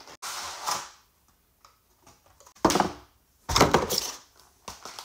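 Cardboard collection box being opened by hand and its clear plastic insert tray pulled out: a short scuffing of cardboard at the start, then two brief, louder rustling crackles about two and a half and three and a half seconds in.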